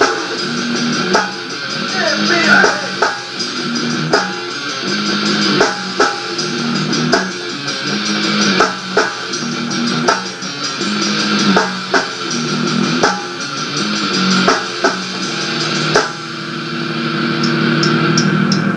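Rock band music with electric guitar, bass and drum kit, the drums hitting in a steady beat; the playing thins out about three-quarters of the way in, then builds back up.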